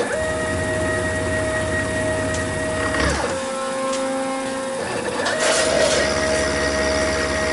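Milling machine cutting cast iron with a 1/4-inch ball end mill on stepped passes: a steady motor whine that glides lower about three seconds in and back up near five seconds as the pass changes direction, with a low hum under it and a brief brighter hiss of cutting noise in the second half.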